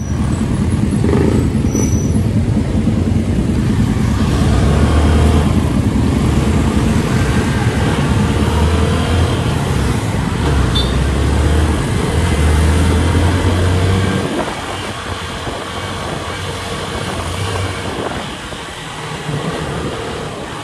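Vehicle engine and road traffic noise from a moving ride: a steady deep rumble that eases off and gets lighter about two-thirds of the way through.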